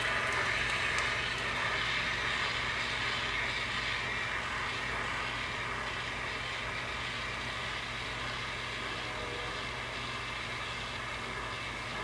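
Jeweller's gas torch burning with a steady hiss, heating sterling silver to flow solder. The hiss eases slightly over the seconds.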